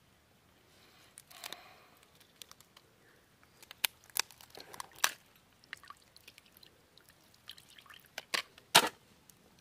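Boiled crabs being broken apart by hand: scattered sharp cracks and snaps of shell as the top shell is prised off the body, the loudest crack a little before the end.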